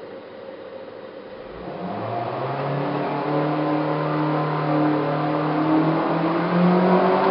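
CNC-converted milling machine's motors starting up: a low hiss gives way about a second and a half in to a whine of several steady tones that grows louder and holds, with one tone rising in pitch near the end.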